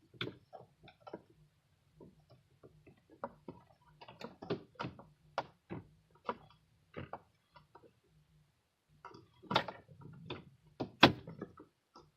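Irregular clicks and knocks of the instrument cluster and dash parts being handled and worked into the dashboard, with two sharper knocks near the end.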